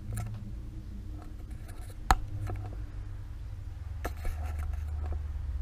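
Small sharp clicks and knocks of tools and parts being handled at a workbench, the loudest about two seconds in and another about four seconds in, over a low steady hum.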